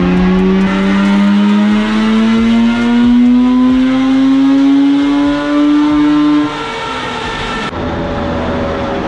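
Mazda RX-8's two-rotor 13B Renesis rotary engine pulling under load on a chassis dynamometer during a power run, its note climbing steadily through the revs. About six and a half seconds in the pull ends and the pitch falls back.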